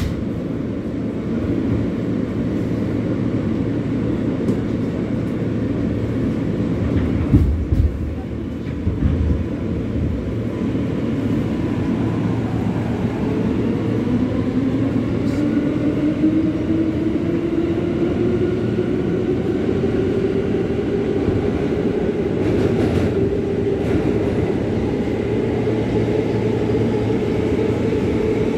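New York City subway L train car pulling out of a station, heard from inside the car: a steady rumble with a few low thumps about a quarter of the way in. About halfway through a whine starts and rises steadily in pitch as the train picks up speed.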